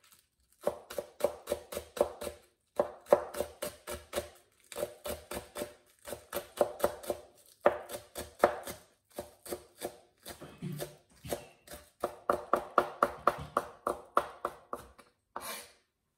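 Kitchen knife chopping green onions on a plastic cutting board: quick runs of sharp taps, about six a second, with short pauses between runs, and a scrape of the blade across the board near the end.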